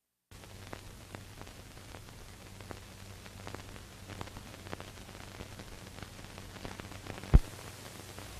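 Noise of a blank soundtrack on an old commercial reel's leader: steady hiss with a low hum and scattered faint crackles, and one sharp loud pop near the end.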